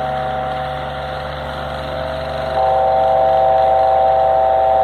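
Wall-mounted electric fan running with a steady vibrating hum of several tones, its vibration carried into the hollow-block wall it is mounted on, which amplifies the noise. The hum gets suddenly louder about halfway through.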